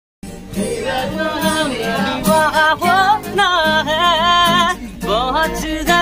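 A man singing to his own strummed Yamaha acoustic guitar, the voice wavering in pitch over steady strums. It starts abruptly just after a moment of silence.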